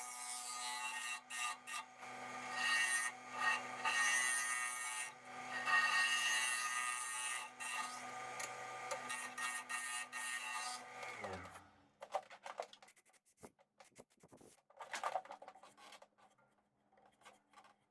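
Wood lathe running with a hum while the spinning alder bowl is rubbed, as in sanding or buffing the finish. About eleven seconds in the lathe is switched off and winds down with a falling pitch, followed by light, scattered rubbing and handling noises.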